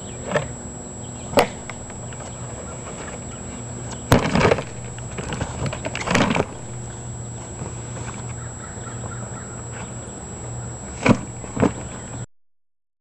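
Folding boat's panels being pulled open and popped into shape by hand: a few scattered sharp snaps and short rustling bursts over a steady low hum. The sound drops out to silence near the end.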